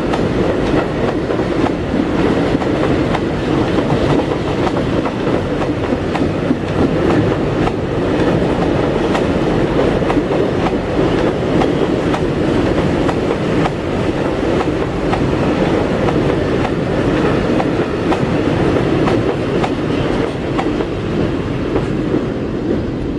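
A long rake of empty timber wagons rolling past, wheels clattering steadily over the rail joints, easing off slightly near the end.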